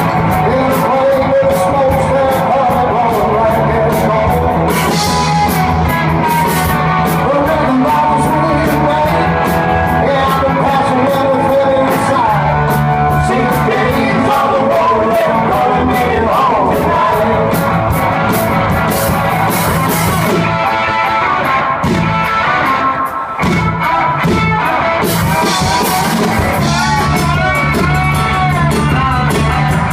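Live rock band playing loud, with electric guitars, bass, drum kit and a vocal. The cymbals drop out for a few seconds past the middle, then the full band comes back in.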